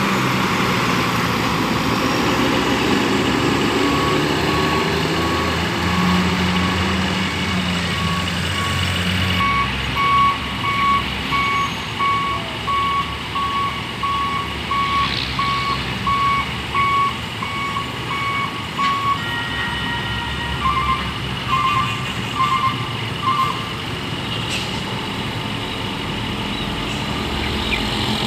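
A bus's reversing alarm beeping steadily, about two beeps a second, over its diesel engine running. The beeping stops about two-thirds of the way in, and a few quicker double beeps follow.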